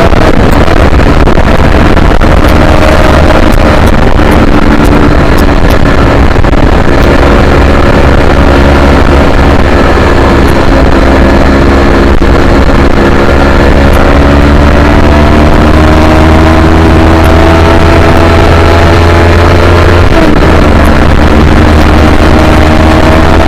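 Yamaha R3's 321 cc parallel-twin engine running hard, its pitch climbing slowly and steadily, with a sharp short dip about twenty seconds in before it climbs again, over a heavy low rumble.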